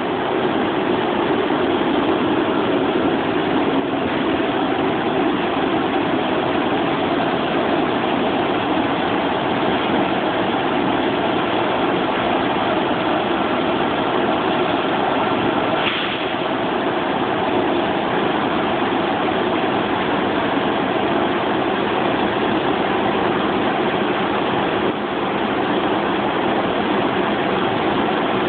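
Vertical glass washing machine running: a loud, steady machine noise with no change in pace.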